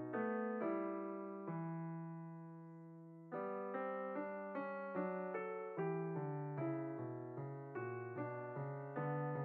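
Background piano music, gentle struck notes each fading away. About a second and a half in, a chord is left ringing and dies away for about two seconds before the playing picks up again.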